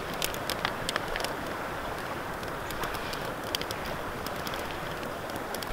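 Small wood campfire crackling, with scattered sharp pops over a steady rushing noise. About four seconds in, water is poured from a plastic bottle into a frying pan sitting on the grill over the fire.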